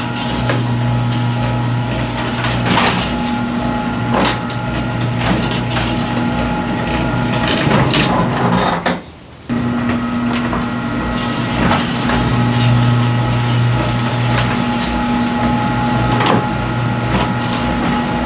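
Garage door running on its track, driven by an opener motor with a steady hum, with light clicks and knocks from the rollers and hinges. About nine seconds in the run stops briefly, then starts again. The door is fitted with the spring-loaded green hinge system and nylon rollers, and no rattle stands out.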